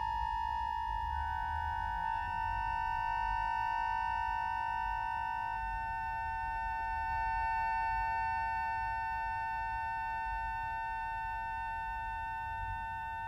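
Solo accordion sustaining a high chord of several held notes, with notes entering and shifting in the first few seconds, over a low background rumble.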